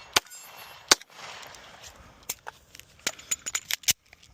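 Gunshots at a steel gong target: two shots in the first second, then a quicker string near the end, with the gong ringing after hits.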